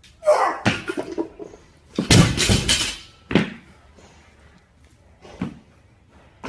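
A heavily loaded barbell crashing down onto the gym floor after a failed clean, the weight plates clanging loudly, followed by two smaller knocks. A short grunt from the lifter comes right at the start.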